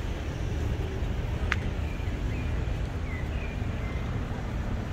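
Outdoor harbour-side ambience: a steady low rumble, with a single sharp click about one and a half seconds in and a few short bird chirps soon after.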